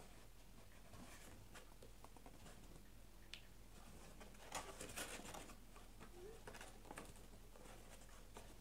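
Faint rustling and tapping of a cardboard Easter egg box being handled and folded, with a louder run of crinkling about halfway through.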